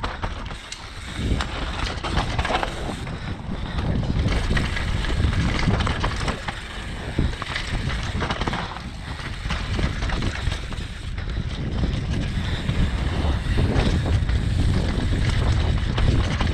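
Wind rushing over the microphone as a downhill mountain bike descends a dirt forest trail at speed, with a low rumble of tyres on dirt and irregular rattles and knocks from the bike over bumps and roots.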